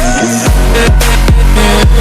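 Loud electronic background music with a heavy bass line and a steady drum beat, about two to three drum hits a second.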